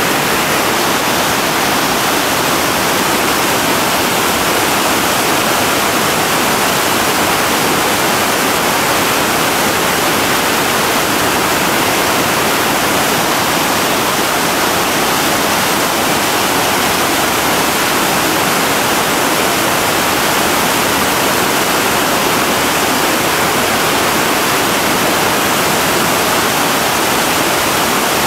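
Whitewater river rapids rushing: a loud, steady wash of water noise that never lets up.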